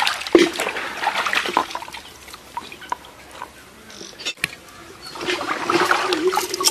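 Water sloshing and splashing in a plastic tub as pieces of fish are washed by hand, with dripping and trickling as pieces are lifted out. The splashing is loudest in the first couple of seconds and quieter in the middle.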